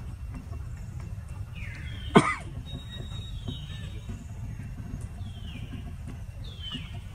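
Newborn monkey squeaking: short high-pitched calls that fall in pitch, repeating every second or two, with one loud sharp squeal about two seconds in, over a steady low rumble.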